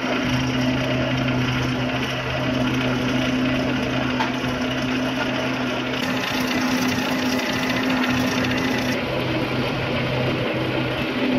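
Corrugated-cardboard production machinery running: a steady hum under a dense mechanical rattle. The sound shifts slightly about six seconds in and again near nine seconds.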